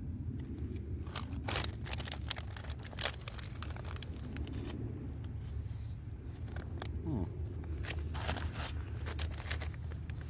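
Steady low wind rumble on the microphone, with two spells of crisp crinkling from a plastic ration food pouch being handled.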